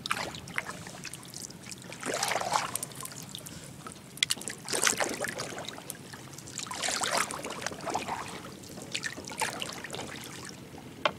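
Paddle strokes in the water beside a small boat, five splashes with trickling drips, about every two and a half seconds.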